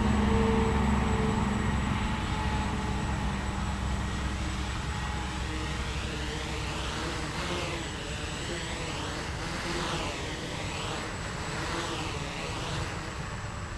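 Small quadcopter's four electric motors and propellers buzzing steadily as it hovers and comes down low over the grass, slowly getting quieter.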